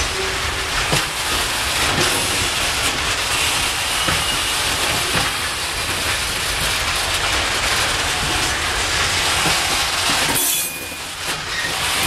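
Loaded open-top coal wagons rolling slowly along the track, their wheels clicking and knocking over rail joints, with faint wheel squeals. The low rumble briefly drops away near the end.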